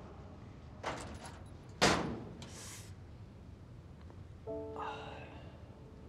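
Metal locker door handled: a light clatter about a second in, then a louder bang near two seconds, with a brief swish just after. A soft music chord sounds near the end.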